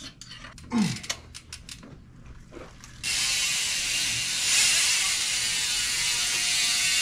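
A few sharp metal clicks as the right pedal is wrenched loose. Then, about three seconds in, a sudden, steady, fast ratcheting buzz from the bicycle's rear freehub as the wheel and drivetrain spin freely on the work stand.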